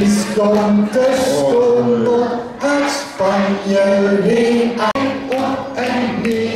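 Many voices singing a song together in long held notes, phrase by phrase.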